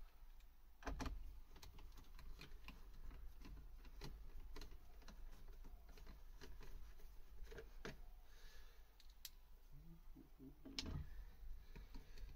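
Faint, irregular clicks and light taps of hands working small plastic trim clips and parts at the bottom of a stripped car door frame, with a slightly louder knock about a second in and another near the end.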